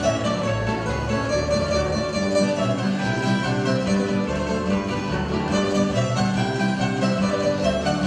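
Live Croatian folk string band playing a steady dance tune: plucked tamburica strings with a fiddle.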